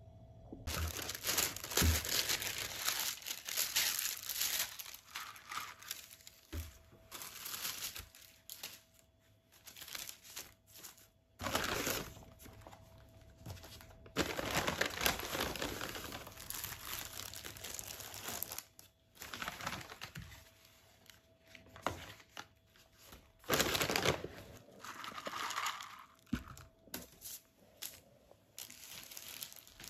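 Paper and thin plastic takeout bags rustling and crinkling in bursts as the food is unpacked.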